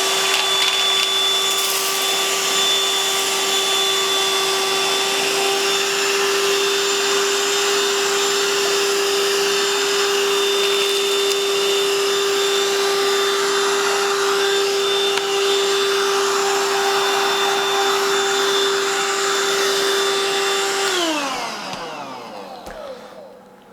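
Black+Decker Dustbuster AdvancedClean cordless handheld vacuum running at a steady pitch with a whine and a wide rush of air as it sucks up spilled debris. About three seconds before the end it is switched off and the whine falls away as the motor spins down.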